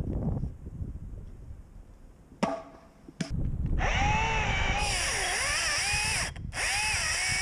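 Echo DCS-2500T battery top-handle chainsaw, quiet at first apart from a click, then running up about three seconds in and cutting wood. Its electric motor whine dips and rises as the chain takes the load, and drops out briefly near the end before picking up again.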